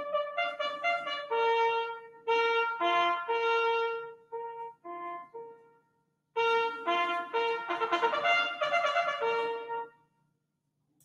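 Trumpet playing a melody of distinct held notes as intro music, with a short pause about six seconds in, ending near the end.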